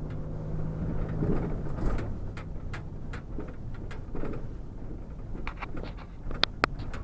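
Van running, with a low hum and light clicks and rattles every few tenths of a second; two sharp clicks come close together near the end.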